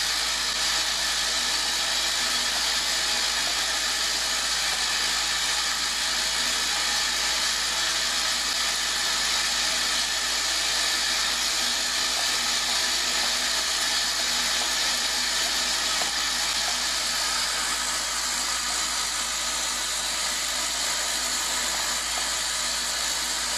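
Vibratory bowl feeder running, loaded with wooden clothespin parts: a steady, dense rattling hiss of the wooden pieces shaking along the bowl, over a low electrical hum.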